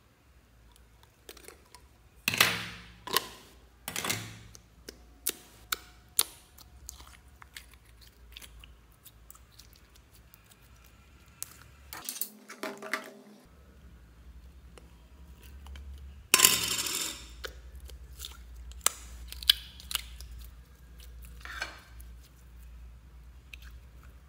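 Slime being handled by hand in a clear plastic storage bin, with a round plastic slime pot opened and emptied: irregular sharp clicks, taps and snaps. The loudest snaps come about two and a half seconds in and again about sixteen seconds in.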